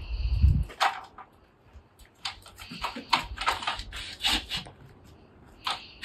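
Tall aluminium A-frame ladder clanking and rattling in a string of short, uneven knocks as it is walked along, with a dull low thump in the first half second.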